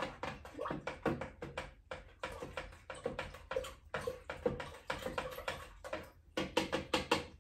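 A spoon stirring fertiliser into a gallon of water in a plastic container, knocking and clicking against the sides in a fast, irregular run of taps.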